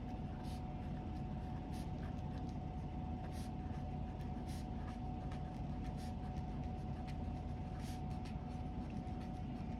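Pen writing on a paper workbook page: faint, irregular scratching strokes over a steady low hum.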